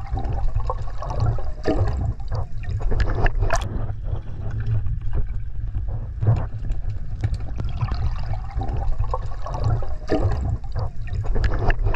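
Underwater sound picked up through a waterproof camera housing: a steady low rumble of moving water, with scattered clicks and knocks.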